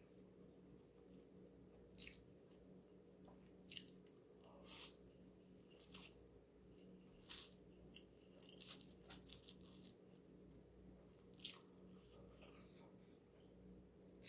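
Someone eating instant noodles: short wet slurps, smacks and chewing sounds every second or so, busiest around the middle, over a faint steady hum.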